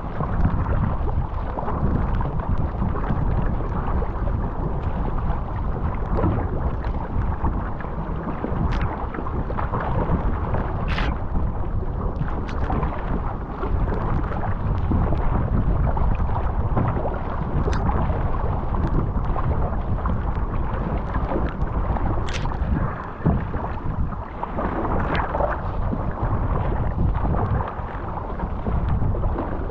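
Wind buffeting the microphone with a steady rumble, over water rushing and splashing along a surfski hull as it is paddled through choppy sea, with scattered short sharp splashes.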